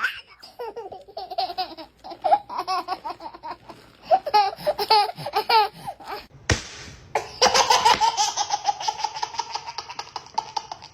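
A baby laughing in repeated fits of quick, rhythmic giggles, broken by a brief noisy burst about six and a half seconds in, then a long run of fast laugh pulses.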